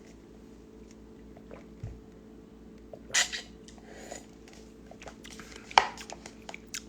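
Ramen soup being sipped from a bowl: a few short slurps and sharp clinks over a low steady hum.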